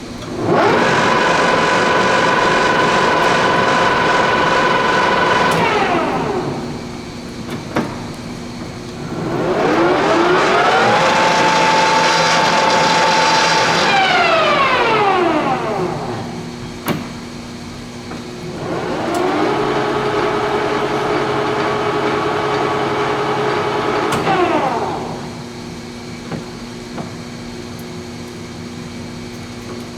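Leblond engine lathe's headstock spindle started and stopped three times at different speed settings: each run spins up, holds a steady gear whine, then winds down, with the third run the lowest in pitch. Sharp clicks between the runs. The headstock sounds sound, by the seller's judgement, though eight mid-range speeds do not work.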